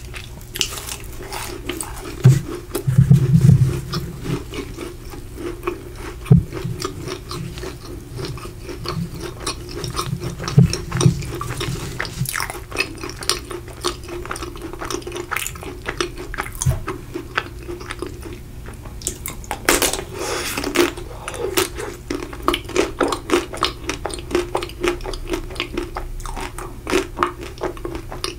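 Close-miked chewing and crunching of a macaron, then a bite cracking the chocolate shell of a Magnum ice cream bar a little past the middle, followed by chewing of the chocolate and ice cream. A faint steady hum runs underneath.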